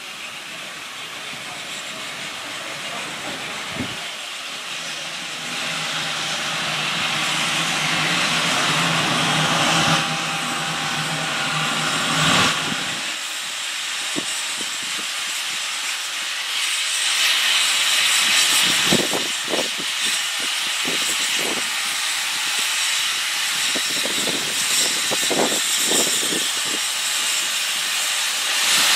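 LB&SCR E4 0-6-2T tank steam locomotive arriving at a platform, steam hissing steadily and growing louder as it draws near. In the second half, sharp uneven knocks of its wheels over rail joints and pointwork join the hiss.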